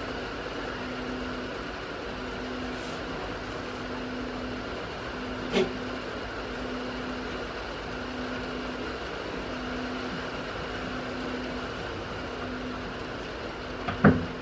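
A steady low hum that pulses on and off about once a second over a constant background noise, with two sharp knocks, one about five and a half seconds in and a louder one near the end.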